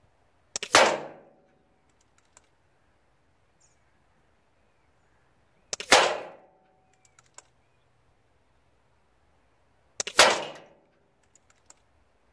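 Three shots from an Air Arms S510 SL Carbine .22 pre-charged pneumatic air rifle, about five and four seconds apart, each a sharp crack that dies away within half a second, with a few quieter clicks between the shots.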